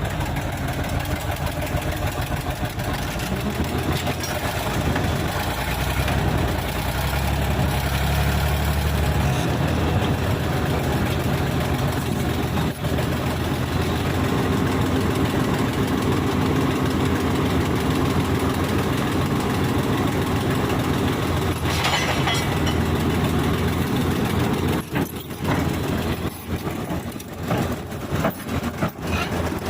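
Heavy diesel engines of a bulldozer and backhoe running steadily. The sound turns choppy and uneven near the end.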